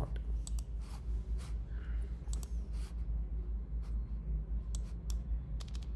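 Computer keyboard and mouse clicks, a dozen or so spread irregularly, over a steady low hum.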